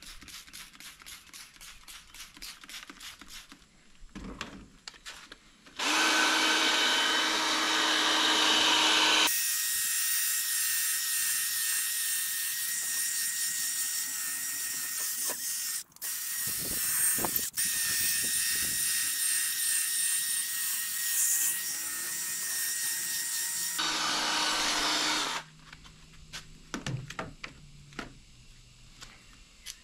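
Cordless drill spinning a 1500-grit sanding disc against a wet plastic headlight lens, running loudly for about twenty seconds with two brief cuts near the middle. Before it starts, a trigger spray bottle squirts water in quick, even strokes.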